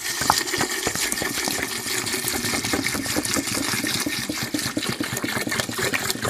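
Spring water pouring in a steady stream into a metal pot onto dry cinnamon sticks, dried elderberries and whole spices, splashing and filling.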